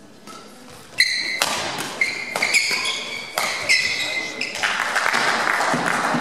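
Badminton doubles rally: a quick run of sharp racket strikes on the shuttlecock with high ringing squeaks, about two a second. About four and a half seconds in the rally ends and a steady wash of spectator noise takes over.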